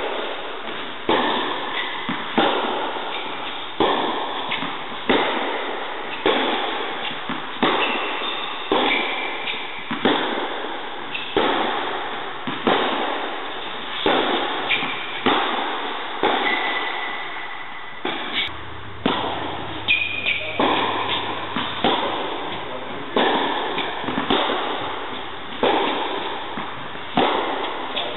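Tennis balls struck hard with a racket in a rally, sharp hits with ball bounces in between, about one every second and a half, each ringing in the echo of a large indoor tennis hall.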